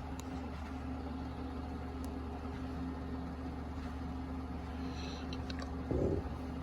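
Steady low machine hum in the shop, with a single brief knock about six seconds in.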